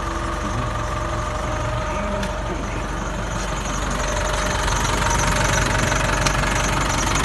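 Diesel engine of a New Holland TS100 tractor idling steadily with an even low pulse, growing louder about halfway through.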